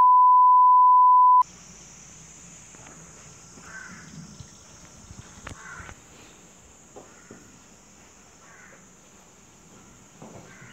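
Loud, steady 1 kHz test-tone beep over colour bars for about a second and a half, cutting off suddenly. After it, faint room sound with a steady high hiss and a few faint short sounds.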